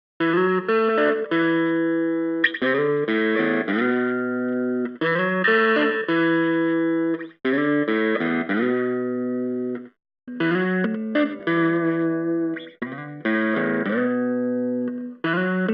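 Strat-style electric guitar with single-coil pickups playing the same short chord-and-note phrase over and over. Each pass lasts about two and a half seconds, and the sound breaks off briefly twice as one take gives way to the next.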